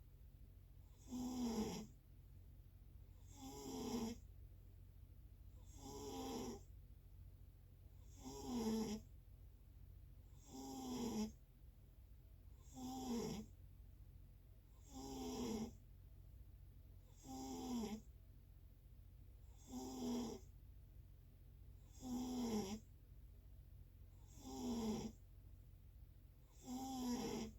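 Steady, regular snoring: about a dozen snores, one every two and a half seconds or so, each a short breathy snore whose pitch drops slightly, over a faint constant low hum.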